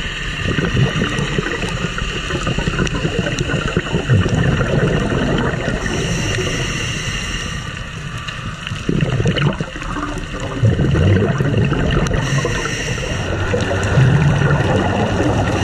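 Scuba regulator breathing heard underwater: gurgling rushes of exhaled bubbles every few seconds over a steady rumble of water noise.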